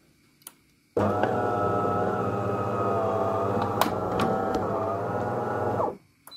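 De'Longhi Magnifica Evo espresso machine running an internal motor after the espresso has stopped pouring, a loud steady hum of about five seconds that starts and stops abruptly. A short high tone follows near the end.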